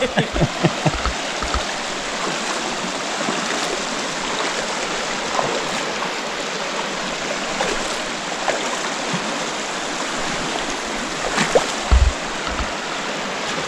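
Shallow mountain river rushing over boulders and riffles: a steady hiss of running water. A few dull thumps come right at the start and again near the end.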